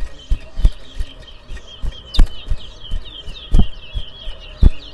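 A caged towa towa finch chirping a run of short twittering notes, with half a dozen dull low thumps at irregular intervals, louder than the chirps.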